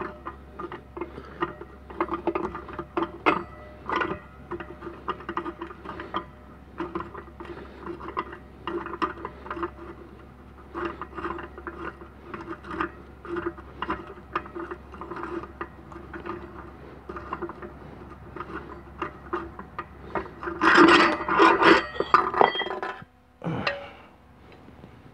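Irregular rubbing and scraping with scattered small clicks from a hand moving right against the microphone, over a steady low hum. The rubbing gets louder and denser for a couple of seconds near the end, and the hum then stops.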